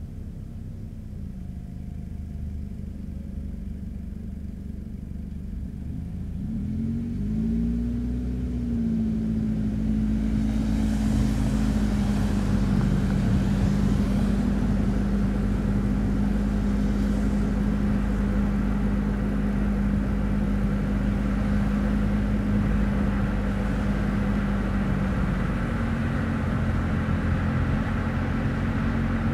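Car being driven: its engine note rises and shifts about seven seconds in as it speeds up, and road and tyre noise build over the first ten seconds. It then holds a steady engine tone with road noise at cruising speed.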